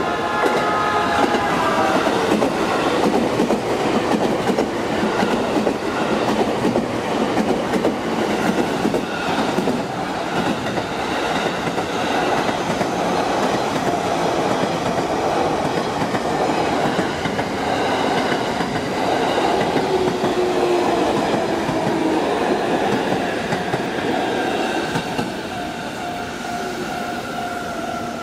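JR East E233 series electric commuter train running past close by, its wheels clattering over the rail joints. Pitched motor whines fall in pitch near the start and again later on, and the noise eases off near the end.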